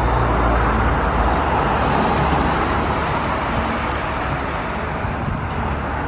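Road traffic: a motor vehicle passing on the road, tyre and engine noise with a low rumble, loudest in the first second or two and slowly fading away.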